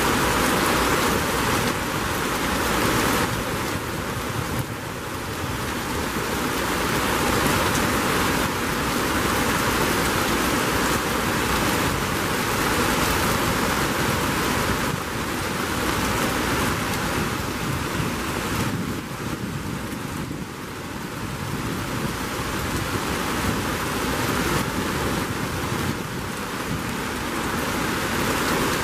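Heavy rain pouring down, a dense steady hiss that eases slightly about two-thirds of the way through and picks up again near the end.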